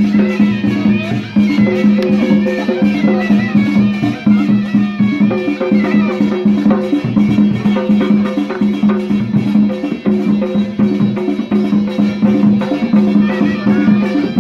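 Live Balochi Lewa music: a reedy pipe melody winding over a steady drone, with a quick, even drumbeat driving the dance.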